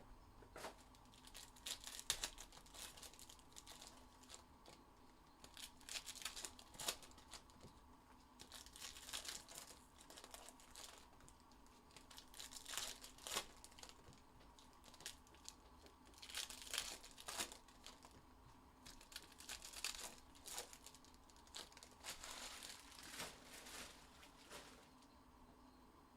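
Faint crinkling and tearing of foil trading-card pack wrappers being ripped open and handled, in short irregular bursts.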